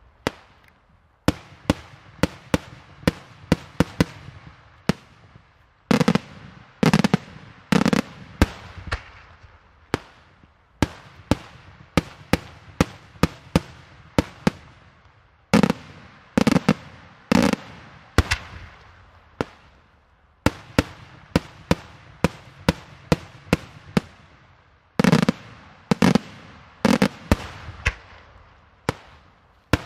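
Daytime aerial fireworks: a steady run of sharp shell bursts, several a second at times, with three clusters of louder, deeper booms about ten seconds apart, each bang trailing off in a short echo.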